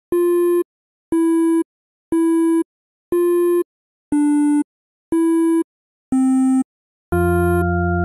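Electronic beep tone pulsing about once a second, each beep half a second long, like a telephone busy signal; the fifth beep is a little lower and the seventh lower still. Near the end, sustained synthesizer chords with a bass line come in as the song's intro.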